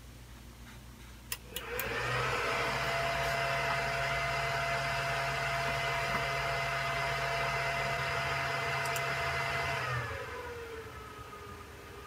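Supermicro 1U server being powered on: a few clicks, then its cooling fans spin up to full speed with a loud steady whoosh and whine for about eight seconds, the full-speed fan burst at power-on. Near the end the fans slow, the whine sliding down in pitch to a quieter steady whir.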